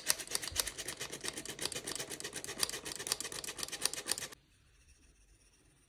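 Flour being sifted through a metal sifter: rapid, even rasping strokes of the mesh that stop suddenly a little over four seconds in.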